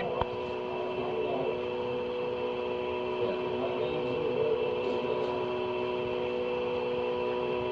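Open railroad dispatcher's telephone line between calls, heard on a 1970s cassette recording: a steady hum of several held tones over hiss, with a single sharp click just after the start.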